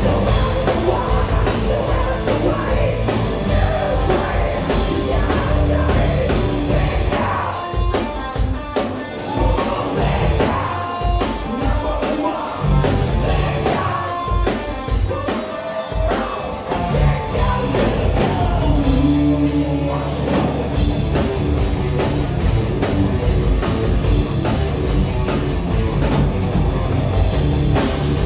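Hard rock played by a band: a drum kit keeping a steady beat under electric guitars, with a singing voice.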